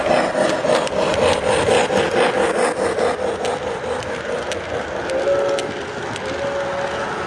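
Model train rolling past close by, a steam locomotive followed by passenger cars, its wheels rumbling on the track and clicking over the rail joints. The clicking comes quickly for the first three seconds or so, then thins out.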